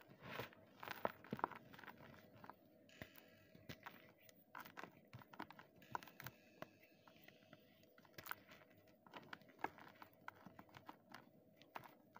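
Blocks of gym chalk crumbled and crushed by hand: irregular soft crunches and crackles, with loose chalk powder rustling between them.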